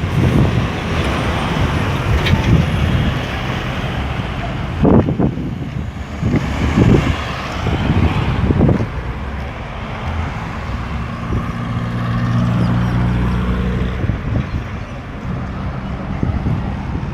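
Road traffic: cars and heavier vehicles passing on a busy roundabout, with several louder passes between about five and nine seconds in. From about ten to fourteen seconds a heavy vehicle's engine adds a low, steady hum.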